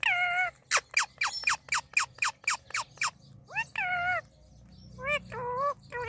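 Indian ringneck parakeet calling: a drawn-out, wavering call, then a quick run of about ten sharp, downward-sliding chirps over some two seconds, then more drawn-out calls near the end.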